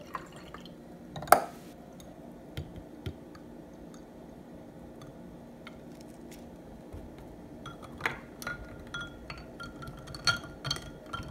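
A drink poured into a tall glass of ice, with one sharp clink about a second in. Toward the end ice cubes clink repeatedly against the glass as the drink is stirred with a straw.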